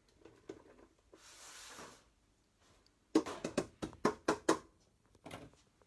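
Vegetables being tipped from a plastic bag into a stainless steel stockpot and stirred with a wooden spoon: a brief rustle about a second in, then a quick run of knocks and clatters about three seconds in, with one more near the end.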